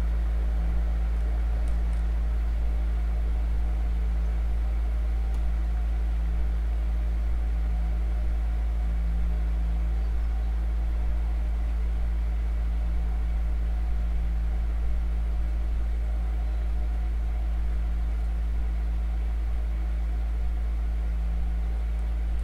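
A steady, unchanging low drone: a strong deep rumble with several held tones above it.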